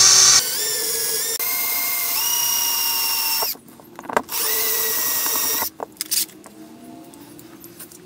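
Small handheld electric drill with a 2.6 mm bit whining as it drills out the rivet of a die-cast toy car's base, its pitch dipping and recovering under load. It stops about three and a half seconds in, runs again for about a second and a half, then a few clicks follow and it goes quiet.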